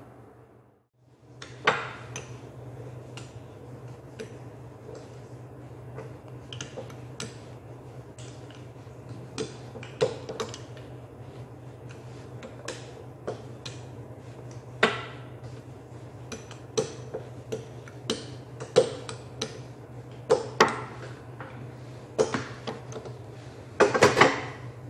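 Irregular knocks and clatter of a handled wooden rolling pin and its metal frame against a marble countertop as dough is rolled and pressed, a few knocks much louder than the rest, over a steady low hum.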